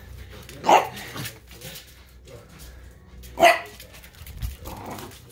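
Pembroke Welsh Corgi puppy barking twice in short barks, about a second in and again some three seconds later.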